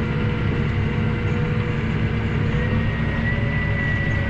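180-horsepower farm tractor's diesel engine running steadily under load while pulling a plough, a constant low rumble with a thin steady whine on top.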